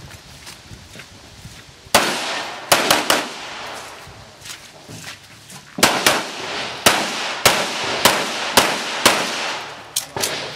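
Pistol shots at a multi-gun competition stage, each a sharp crack with a short echo: one about two seconds in, a quick group of three soon after, then a steady string of shots about two a second through the second half.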